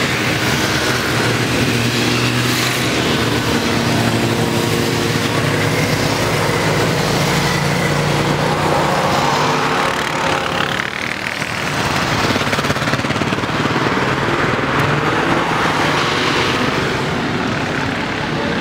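A column of motorcycles riding past one after another, their engines running loudly and steadily, with a short lull about eleven seconds in.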